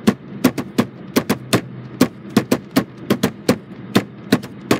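Rapid, uneven tapping on a hard surface close by, about four or five sharp knocks a second, in the manner of hand drumming, over a steady low hum.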